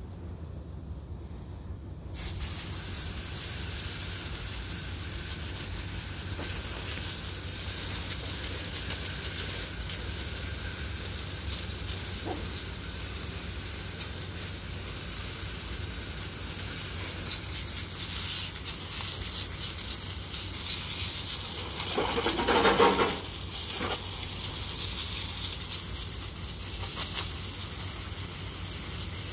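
Garden hose spray nozzle hissing as its jet washes down a concrete dog-run floor. The hiss starts about two seconds in, and there is a brief louder rush about three-quarters of the way through.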